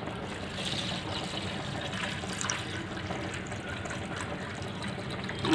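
A steady stream of water pouring into a stainless steel bowl, splashing into the water already in it as the bowl fills.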